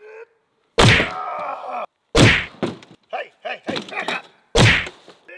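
Three heavy whacks about a second and a half apart, each with a short ringing tail, with brief groan-like vocal sounds between them.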